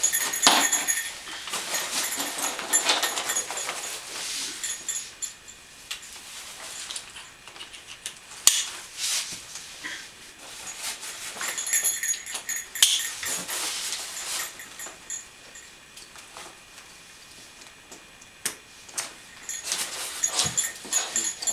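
A dog backpack being fitted and buckled onto a dog: nylon straps and fabric rustling, buckles and clips handled. Small bits of metal jingle now and then.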